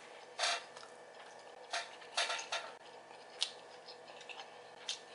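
A seat creaking and clicking under a shifting person: about six short, sharp creaks spread over five seconds.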